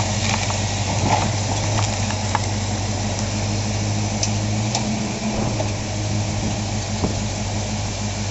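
1995 Ford Mustang 5.0's V8, fitted with a Flowmaster exhaust, idling steadily with an even low hum.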